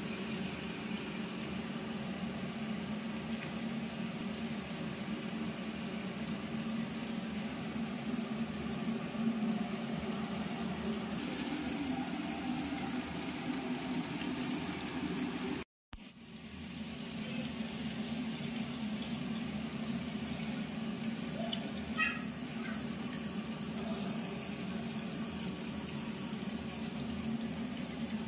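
Boiled young jackfruit pieces sizzling as they fry in hot oil in a pan: a steady hiss. There is a momentary break about halfway through and a light tap later on.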